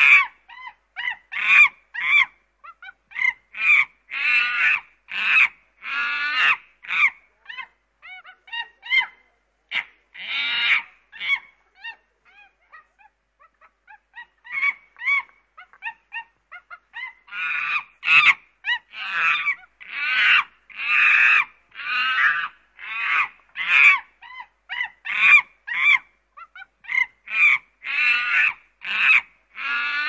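Chimpanzee calling: a rapid series of loud pitched calls, about two a second, thinning out to softer ones for a few seconds around the middle before building back up to a loud stretch.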